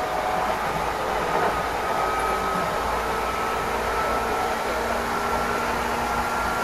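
Meitetsu Inuyama Line express train running, heard from inside the passenger car: steady rumble and rail noise, with a whine that slowly rises in pitch.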